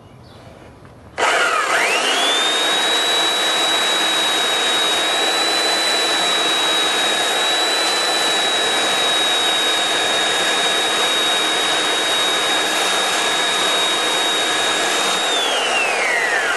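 Handheld belt sander switched on about a second in, its motor whine rising quickly to full speed, then running steadily with a noisy grinding as the belt sands the cut edge of a quarter-inch mirror glass. Near the end it is switched off and the whine falls away as the belt spins down.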